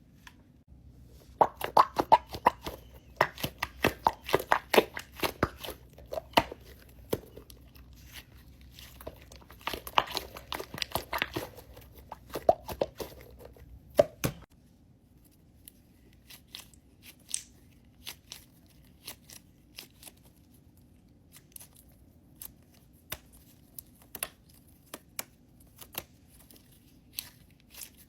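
Close handling noise of crisp crinkling, crackling and tearing, dense for about the first half and thinning to scattered clicks after that.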